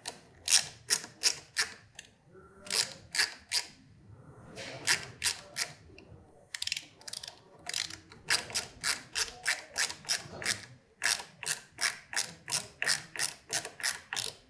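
Ratcheting screwdriver clicking in quick runs of about four to five clicks a second, with short pauses between runs, as it turns a handlebar switch housing's clamp screw.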